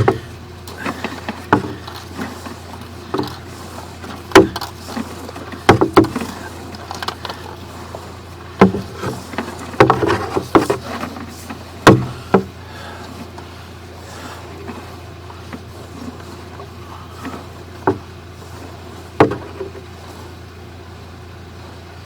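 Steady low engine drone, with irregular sharp knocks and clunks scattered over it, most of them in the first half and only a couple near the end.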